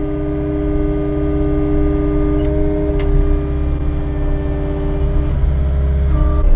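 Cat 259 skid steer's diesel engine running steadily under work, a low rumble with steady humming tones on top. One tone drops away about five seconds in and a higher one comes in near the end.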